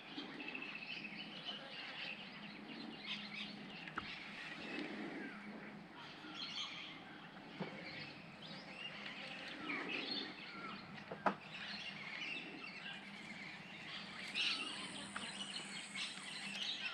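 Birds chirping and calling in scattered short notes, over a faint steady outdoor hiss, with a couple of sharp clicks.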